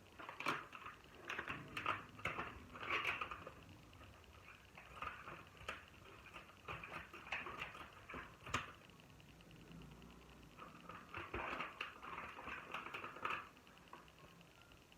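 Light, irregular handling noises: clicks, taps and brief rustling or scraping as things are moved about, with one sharper click partway through. The noises stop a little before the end.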